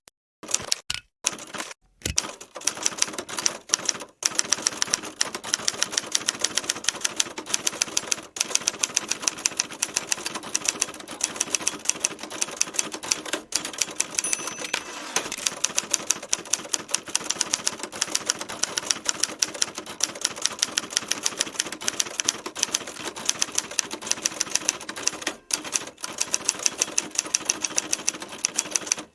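Manual typewriter being typed on steadily: rapid sharp key strikes, several a second, with a few short pauses. It starts with a few scattered strokes before settling into continuous typing about two seconds in.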